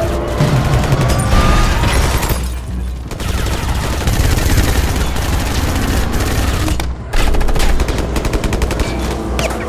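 Heavy automatic gunfire in long rapid bursts, with rounds striking a vehicle's body. There is a brief lull about two and a half seconds in, and a dense, fast burst of shots in the last few seconds.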